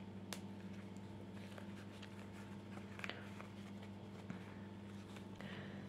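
Faint handling sounds of a crochet hook working cotton yarn, with a few light ticks, over a steady low hum.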